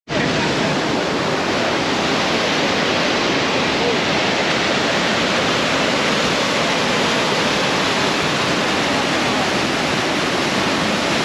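Avalanche Creek's whitewater rushing and cascading through its narrow rock gorge: a loud, steady, unbroken rush of water.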